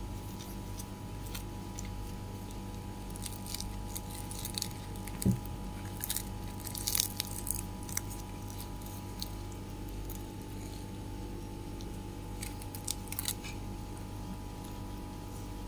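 Hands rolling up and handling a flaky paratha on a steel plate: scattered soft crackles and rustles in short clusters, with one dull thump about five seconds in. A steady low hum runs underneath.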